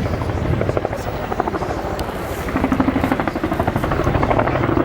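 Boeing Chinook Mark II tandem-rotor helicopter passing close, its twin rotors beating in a fast, even blade thump over the engine noise. The thumping grows louder in the second half.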